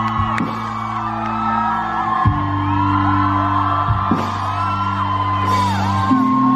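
Live rock band playing: sustained electric guitar and bass chords that change about every two seconds, with voices singing and whooping over them.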